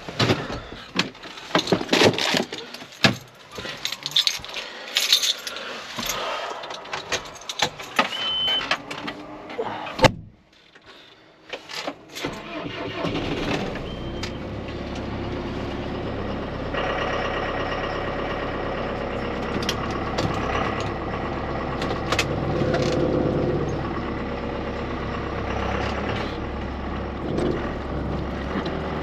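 Scattered metallic knocks and clanks, then one hard slam about ten seconds in. Shortly after, the John Deere 6430 tractor's diesel engine starts and runs steadily at idle.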